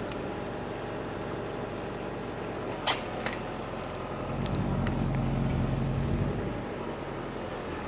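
Tractor backhoe's diesel engine running steadily while digging, growing louder for about two seconds a little past the middle. A sharp clank about three seconds in.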